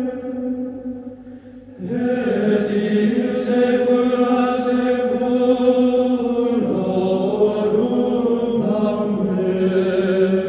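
Chanted singing with long held notes, used as a soundtrack. It fades briefly soon after the start, and a new phrase comes in about two seconds in.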